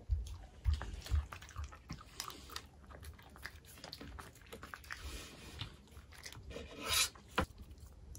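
A dog chewing and crunching a small homemade treat: a string of sharp crunches and teeth clicks, thickest in the first second and a half, with a louder crunch about seven seconds in.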